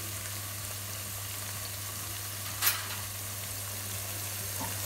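Onion, ginger-garlic and green-chilli masala frying in oil in a steel pot, a steady sizzle over a low hum, with one sharp clink about two and a half seconds in.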